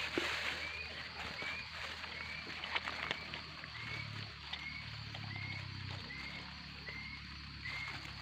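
A small animal calling outdoors, a short rising chirp repeated steadily about three times every two seconds, with a few scattered clicks and taps.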